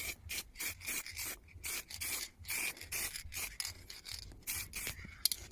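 Hand sanding on a welded metal chair frame: short, irregular rubbing strokes, about three a second, smoothing the surface.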